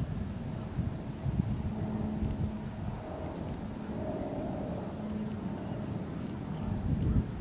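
Gusty wind buffeting the microphone in uneven low rumbles, over a steady high chirring of insects.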